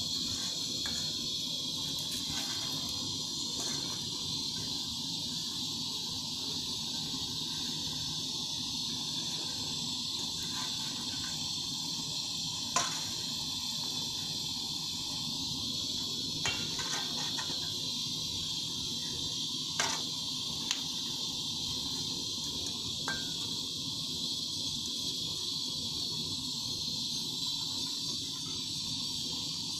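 An LPG brazing torch, boosted with compressor air, burning steadily with a continuous hiss. A few sharp clicks are heard as a thin metal rod stirs and taps inside the steel bowl.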